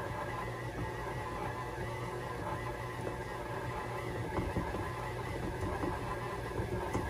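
Electric stand mixer running with a steady motor hum, its beater turning through flour and cold butter as pastry dough comes together.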